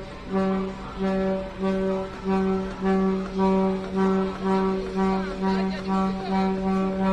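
Motor ship's horn sounding a rapid series of short blasts, about two a second, each on the same low pitch.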